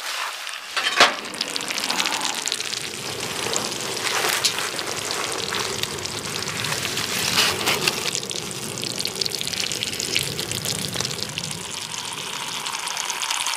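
Cheese-topped gratin in a cast-iron skillet sizzling and crackling under the heat of a wood stove as the cheese browns. A steady hiss dotted with many small pops, starting with a sharp click about a second in.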